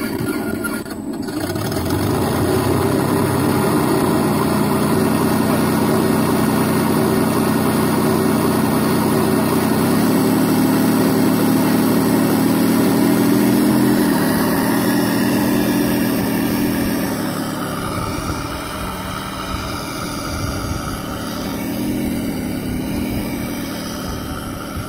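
Simulated piston warbird engine sound from an MrRCsound 4.1 sound module, played through the speaker in an electric RC P-47 model, running steadily at idle. It rises in pitch about ten seconds in and turns quieter after about seventeen seconds.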